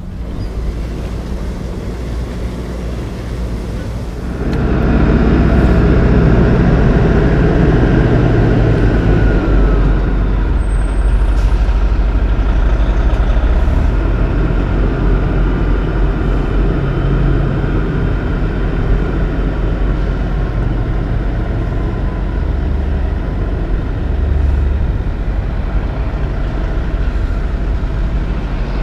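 Kenworth semi-truck's diesel engine running loudly as the rig pulls slowly forward with a van trailer. It comes in suddenly about four seconds in, after a quieter stretch of low noise.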